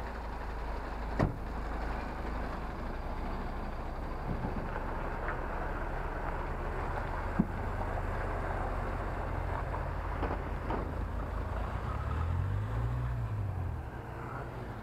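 Articulated lorry's diesel engine running steadily at low revs while it manoeuvres, with two sharp knocks, about a second in and about halfway through. Near the end another vehicle's engine rises and falls in pitch as it passes.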